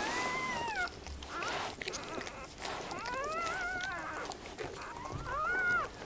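Newborn Swiss mountain dog puppy crying in thin, high, mewing squeals: three short cries, each rising then falling in pitch, while its mother licks it, with soft wet licking and rustling between the cries.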